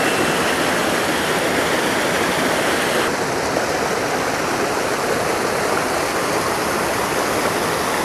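A rocky creek rushing and splashing over boulders and a small waterfall: a steady, full rush of running water.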